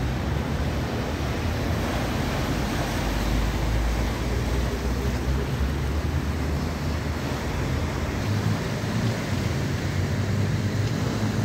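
Sea waves breaking and washing over concrete breakwater blocks, making a steady surf noise, with wind rumbling on the microphone.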